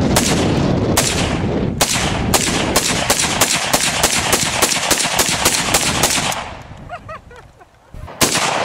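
A rapid string of gunshots, about four a second, lasting some six seconds, then a pause and a single shot near the end.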